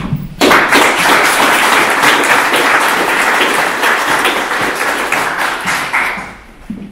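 Audience applauding, starting suddenly about half a second in and dying away near the end.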